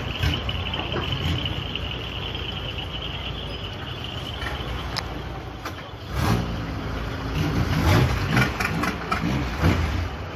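A boat's motor runs steadily beneath the passengers, then grows louder and more uneven after about six seconds.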